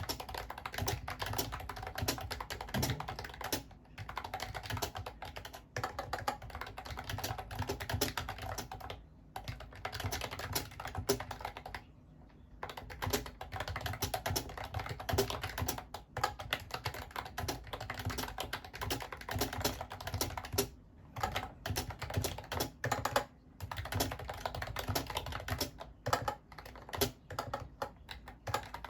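Typing on a Mofii Candy wireless keyboard: a quick, continuous run of key clicks, broken by short pauses every few seconds.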